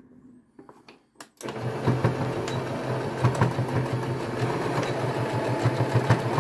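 Domestic sewing machine: a few soft clicks, then the machine starts about a second and a half in and runs steadily at a fast stitch.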